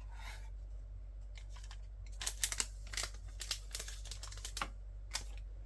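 Light clicks and short crinkling rustles of photo cards and plastic packaging being handled, mostly a cluster from about two to five seconds in, over a steady low hum.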